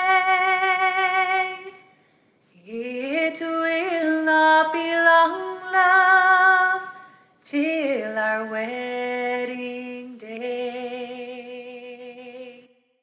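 A woman singing a slow song in long held notes, three phrases with short breaks between them; the last note wavers and fades out as the song ends.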